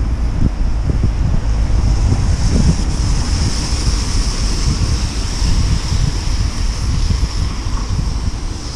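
Wind buffeting the microphone of a camera on a moving bicycle: a loud, uneven low rumble over a steady high hiss.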